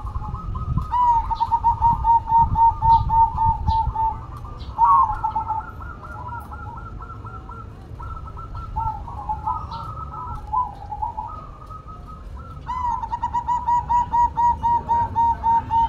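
Zebra dove (perkutut) cooing: a quick rolling series of short, evenly repeated coos, about six a second. The series comes twice, early and again near the end, with scattered higher chirps of other small birds in between.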